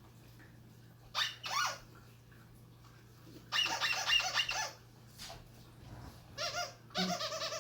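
A dog toy's squeaker being squeezed, giving high-pitched squeaks in three bursts, the middle one the longest.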